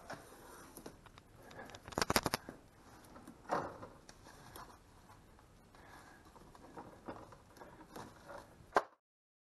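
Hands working under a car's side sill, making scrapes, rustles and small clicks. There is a quick rattle of clicks about two seconds in and a scrape about a second later. A sharp click comes just before the sound cuts off abruptly near the end.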